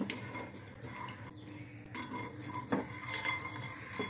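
Silicone spatula stirring fried lentil dumplings (bori) around a nonstick frying pan, with scraping and a few knocks of the spatula against the pan.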